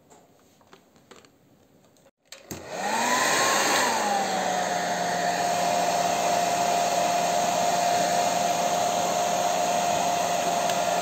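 After near silence, a hand-held hair dryer is switched on about two and a half seconds in and runs steadily. It blows a rush of air, and its motor whine climbs, dips and then holds one steady pitch. The dryer is heating tint film so the film can be stretched over a car tail-light lens.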